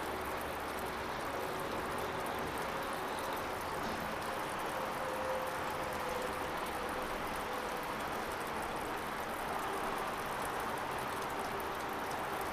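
Steady rushing outdoor background noise with a faint, even hum under it.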